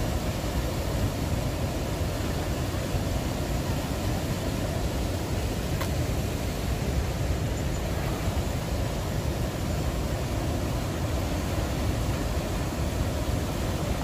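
Steady roar of the Rhine Falls and the rushing river water below them, an even rumbling noise heaviest in the low end.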